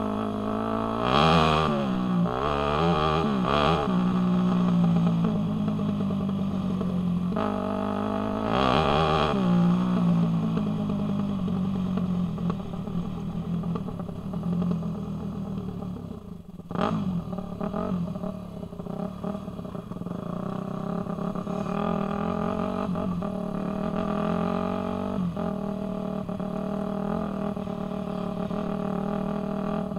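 Off-road dirt bike engine heard from on board the bike, revving up through the gears in two hard surges in the first ten seconds, easing off about halfway with a sharp knock, then running steadily at part throttle.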